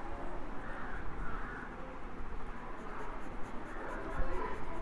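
Soft 8B graphite pencil scratching across paper in a run of short, irregular shading strokes.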